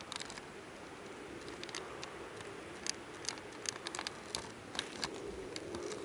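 Footsteps crunching on a thin layer of snow, irregular crunches that come more often from about halfway through, over a faint steady hum.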